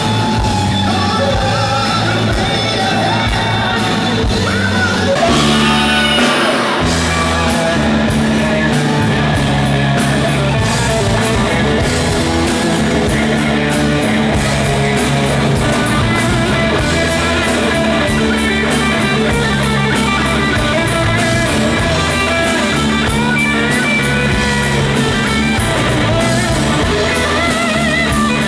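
Live rock band playing loud, with a Stratocaster-style electric guitar taking a solo over bass and drums. The lead guitar bends and shakes its notes, most clearly about five to seven seconds in, and cymbals keep a steady beat.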